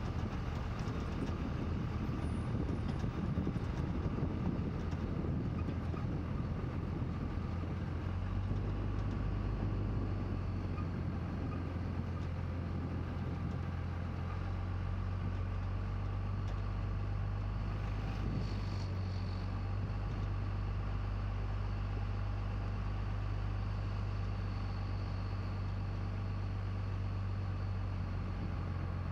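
A motor vehicle's engine running steadily, a low drone that becomes stronger and steadier about eight seconds in.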